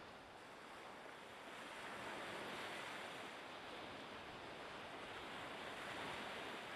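Steady rushing of open water with wind on the microphone, swelling and easing slowly; no engine note stands out.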